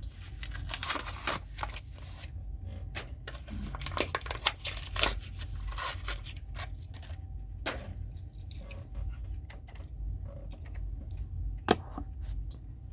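Matchbox blister-card packaging being torn and crinkled open by hand: irregular crackles, snaps and tearing of plastic and card.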